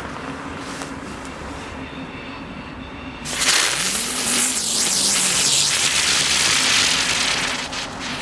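A Lesli Chilli Spinner ground spinner firework going off: about three seconds in, a sudden loud hissing rush starts and runs for about four and a half seconds, then dies away. Before it there is only a low steady background rumble.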